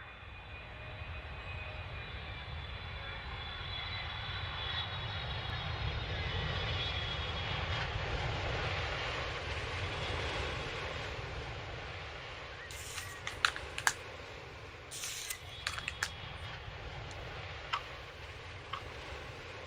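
Airliner jet engines as a sound effect: a steady low rumble with a high whine, swelling to its loudest around the middle and then easing off. A few sharp clicks and short noises come through in the second half.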